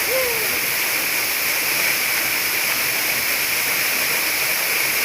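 Waterfall pouring, a steady rushing hiss of falling water.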